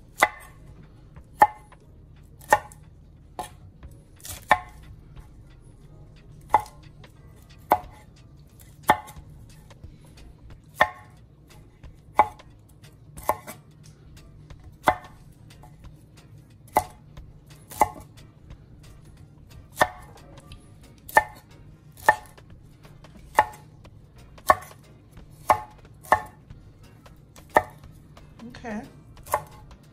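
Knife chopping broccoli into small pieces: single sharp cuts, mostly about one a second, with a few longer pauses.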